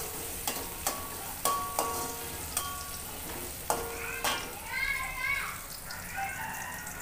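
Sliced shallots sizzling in hot oil in a metal wok as they are stirred with a metal spatula. The spatula strikes the wok with sharp ringing clinks about seven times in the first four seconds. This is the sauté stage, frying the shallots until half-wilted.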